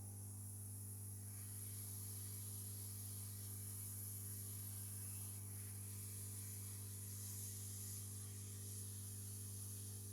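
Steady low hum with a constant high hiss, unchanging throughout, with no distinct events.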